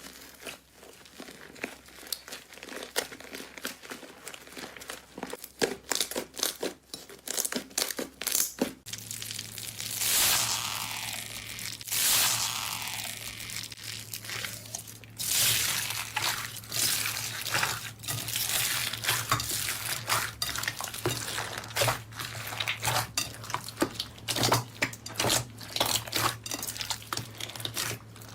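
Slime being squished and pressed by hand, giving dense, irregular crackling and popping clicks. About nine seconds in, a steady low hum starts underneath.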